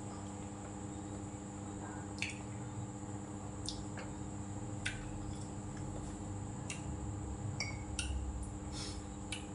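Eating sounds: soft wet chewing and mouth clicks, with a dozen short light clicks scattered through, over a steady electrical hum.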